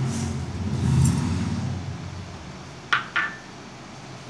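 Kitchen handling sounds as powdered sugar is tipped from a glass bowl into a steel mixer-grinder jar: a low, dull rumble for the first two seconds, then two quick clinks of glassware about three seconds in.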